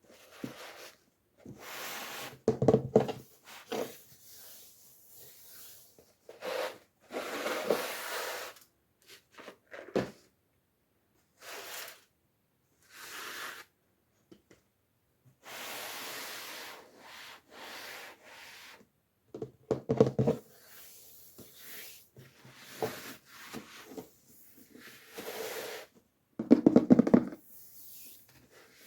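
Toy packaging being handled by hand: short, irregular bursts of rubbing and scraping with a few sharp clicks, separated by quiet pauses. The loudest bursts come near the end.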